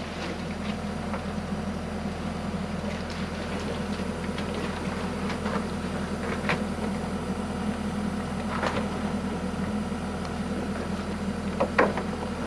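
Caterpillar 312 excavator's diesel engine idling steadily, with a few scattered clinks and knocks from hand work in the trench.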